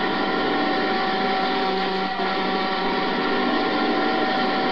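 Improvised experimental noise: several steady held drone tones layered over a dense, grainy buzzing texture.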